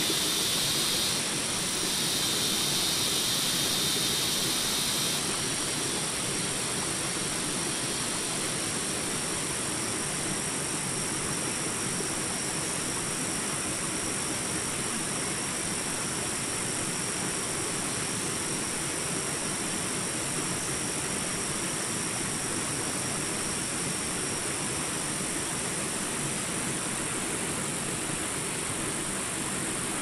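Shallow rocky river running over small rapids: a steady rushing of water. A brighter, higher hiss lies on top for the first five seconds or so, then stops.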